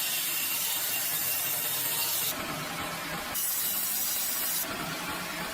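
Timber being cut by a power saw: a steady, hissing cutting noise whose high hiss drops away abruptly twice, for about a second each time.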